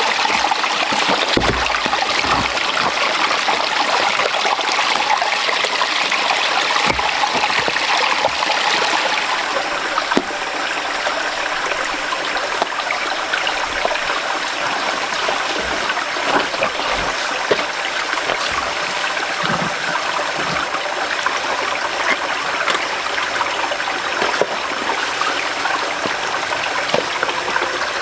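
Rain-swollen mountain stream running steadily, a constant rushing of water, with a few faint low knocks.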